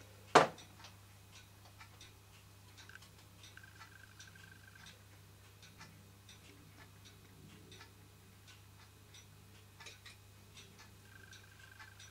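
Märklin toy steam donkey engine with a single-acting cylinder running slowly, making light, irregular clicking, a few clicks a second, with one sharper click just after the start. A low steady hum lies underneath.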